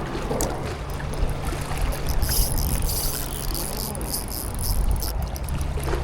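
A steady low engine hum with running water, and a brighter hiss of water in the middle.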